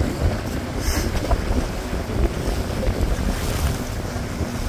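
Gusty wind buffeting the microphone, a rough low rumble that rises and falls.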